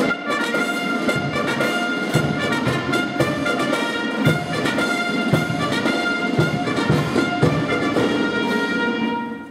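Military brass band of trombones, saxophones and sousaphones playing a tune with a few low drum thuds. The music starts abruptly and fades out about nine seconds in.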